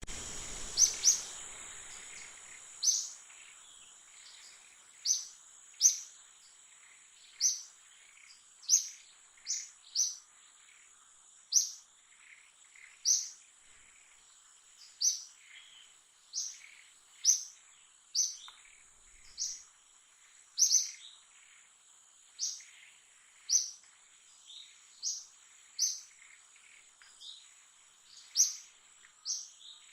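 A bird's short, high chirps repeated about once a second, over a steady high-pitched drone like insects.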